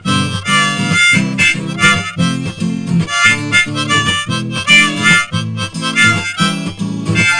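Instrumental background music with a steady beat, no singing.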